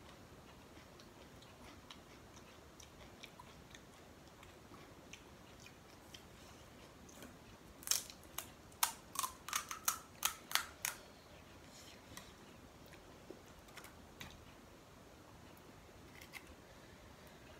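Crisp fried panipuri shell crunching: a quick run of about ten sharp cracks over some three seconds about halfway through, with a few faint crackles before and after.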